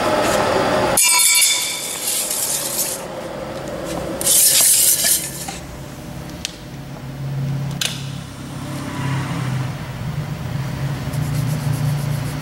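Blanchard Model 11-16 rotary surface grinder running: two bursts of hiss with metallic clinks in the first half, then a steady low machine hum with a few sharp ticks.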